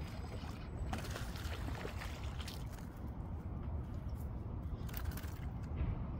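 Wind rumbling on the microphone, with a hooked bass splashing at the water's edge as it is pulled in to the bank.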